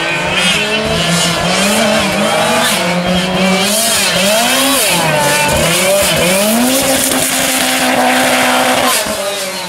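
Lancia 037 rally car's supercharged four-cylinder engine revving hard on a special stage. Its pitch climbs and drops again and again through gear changes and lifts, is then held steady for a couple of seconds, and falls away near the end.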